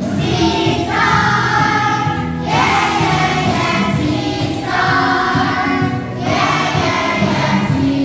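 Group of children singing together over an instrumental accompaniment, in phrases of held notes about one and a half to two seconds long with short breaks between them.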